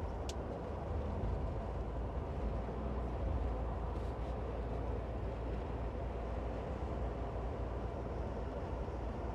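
Steady low road rumble inside a moving car's cabin at highway speed: tyre and engine noise.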